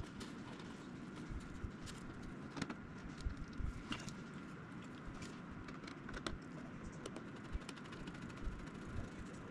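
Faint scattered clicks and light taps from small parts and a small hand tool being handled at a model airplane's tail, over a steady faint hum.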